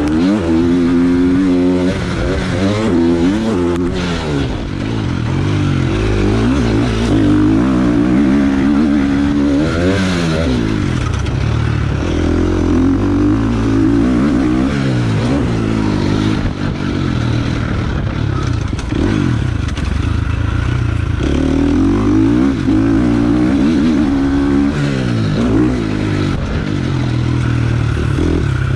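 Motocross dirt bike engine revving up and falling back over and over as the rider accelerates, shifts and brakes around the track, heard close from the rider's chest.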